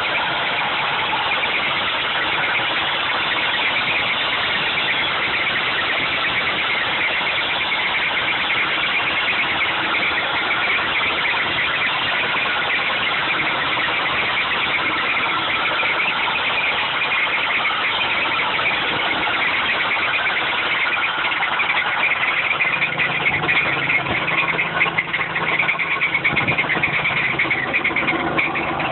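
Supercharged GM 3800 V6 engine running with the noise of a bad bearing. The sound is steady, then grows louder and more uneven in the last several seconds.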